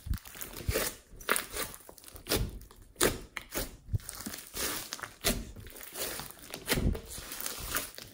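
Hands squeezing, poking and stretching a large mass of mixed slime studded with foam beads. It gives irregular wet squishes with sharp pops and crackles, several a second.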